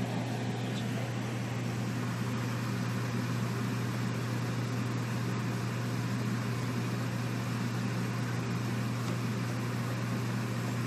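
Steady mechanical hum with an even hiss from a running kitchen appliance motor.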